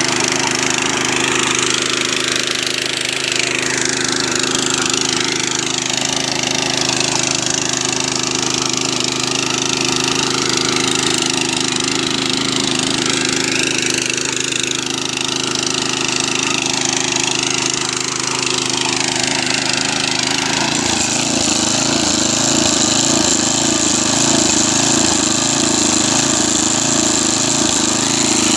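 Tiger GT800 mini power tiller's 208 cc single-cylinder four-stroke engine running steadily under load as its rotary tines churn soil. The engine note shifts about three-quarters of the way through, taking on a pulsing beat.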